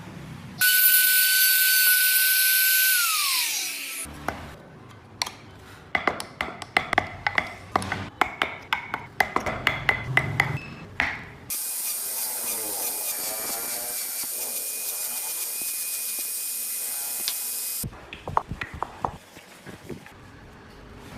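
A small power tool running with a steady high whine, then winding down and stopping. It is followed by a run of sharp taps and clicks of hand work on wood. Then a power tool runs again with a steady hissing whine for about six seconds and cuts off suddenly.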